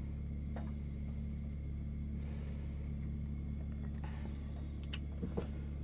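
A steady low hum with a few faint light clicks, one early on and two near the end. There is no sizzle to be heard.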